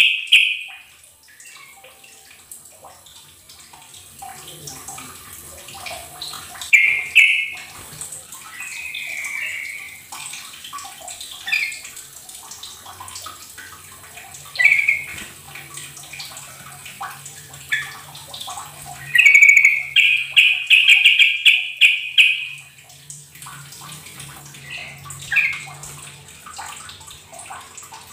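Yellow-vented bulbul (trucukan) singing in short bursts every few seconds, with a longer run of rapid notes lasting about three seconds about two-thirds of the way through.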